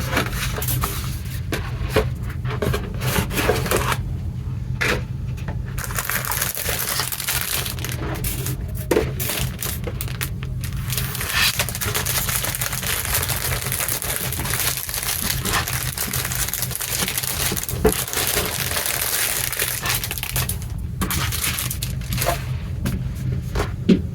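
Plastic packaging crinkling and rustling as it is handled, in irregular spells with a few sharp clicks and light knocks, over a steady low hum.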